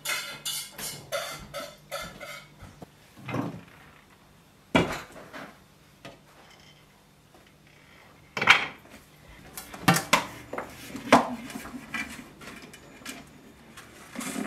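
Metal cooking pot, lid and tray clanking as they are handled: a quick run of light clicks at first, then a handful of separate clanks spread out with pauses between them.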